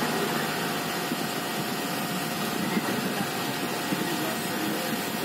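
Hot air rework station blowing steadily, a constant whoosh with a thin steady whine, as its nozzle heats a phone's network IC to reflow it and reseat it properly, the technician's fix for the missing network signal.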